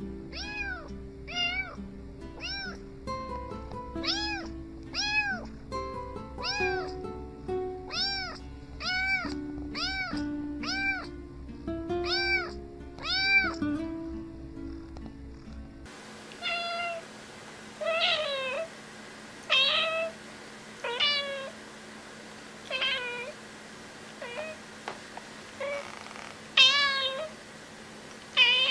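Domestic cat meowing: short, evenly spaced meows over background music, then, after a cut about halfway through, a cat meowing on its own, one meow every second or two, the loudest near the end.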